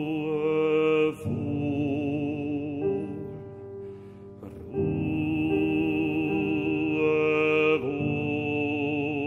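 Operatic baritone singing long held notes with wide vibrato, accompanied by a Bösendorfer grand piano. The voice breaks off briefly near the middle, leaving the softer piano, then comes back on another sustained note.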